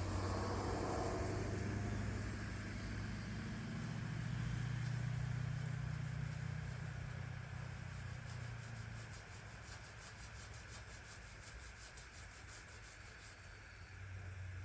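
A low, steady motor hum, loudest through the first half and fading away from about nine seconds in.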